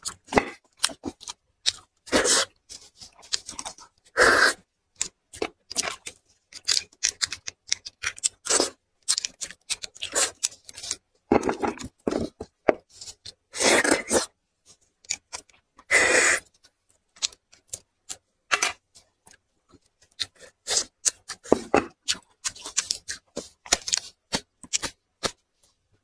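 Close-miked eating of braised marrow bones: wet chewing, smacking and sucking as the marrow is drawn out of the bones. It comes in short spells with brief gaps between, with a few longer sucking sounds near the middle.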